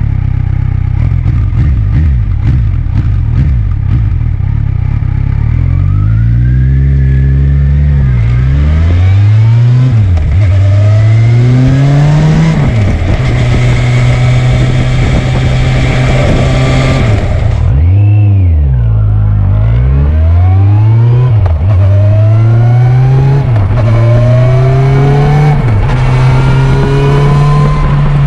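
Kawasaki Versys 1000 GT's inline-four engine heard close to its Akrapovic carbon silencer: it runs steadily for about five seconds, then the bike pulls away and accelerates up through the gears, the pitch rising and dropping at each shift. Around two-thirds of the way through the revs fall away briefly, then it accelerates through several more gears.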